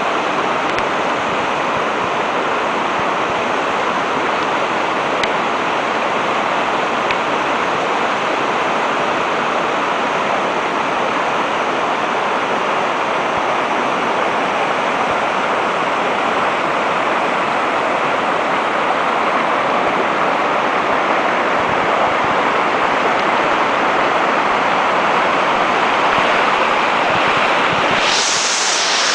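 Valul Miresii waterfall: water falling and splashing in a steady, loud rush. About a second before the end the rush suddenly turns brighter and hissier.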